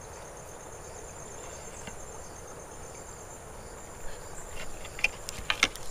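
Insects trilling steadily at a high pitch over the even rush of a flowing river. A few sharp clicks and handling knocks come in the last two seconds.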